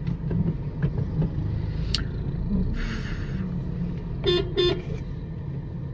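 Steady low engine and road rumble heard from inside a car cabin, with a brief hiss about three seconds in and two short vehicle-horn toots in quick succession about four seconds in.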